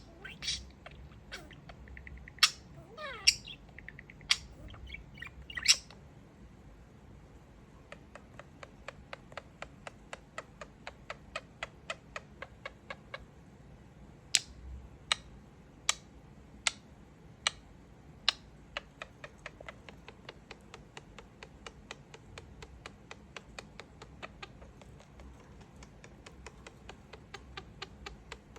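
Pet budgie chirping and squawking in short gliding calls, then making a long run of rapid, short clicky beeps, about four a second, with a few louder sharp ones among them.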